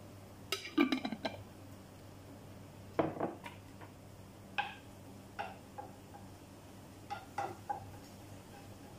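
Kitchen utensils and cookware clinking and knocking in several short bursts, with a wooden spatula stirring and tapping in a nonstick frying pan near the end.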